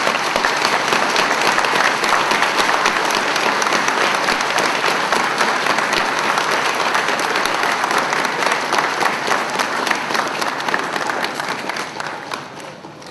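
Audience applauding: a dense clatter of many hands clapping that holds steady, then dies away near the end.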